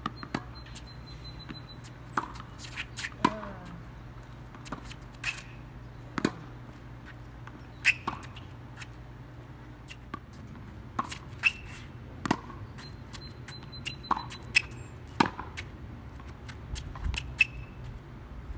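Tennis balls being hit back and forth on a hard court: sharp pops of racket strings on the ball and ball bounces, irregularly spaced, some loud and others fainter.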